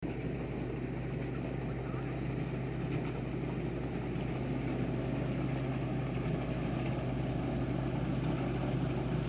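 Tractor engine running steadily at a constant speed, a low even drone.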